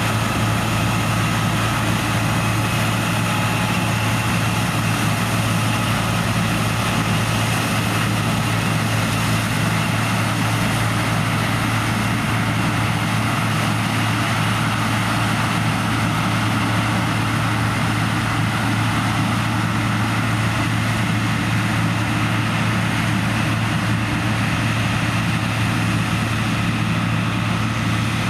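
Heavy diesel farm machinery running steadily while harvesting corn: a constant low drone with steady whining tones above it and no change in level.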